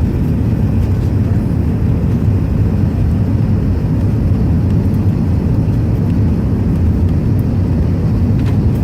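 Steady low rumble of an airliner cabin: the engines and the air rushing past the fuselage, heard from inside the plane.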